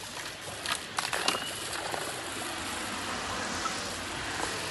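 Water from a roadside mountain spring running and splashing steadily, with a few light knocks about a second in.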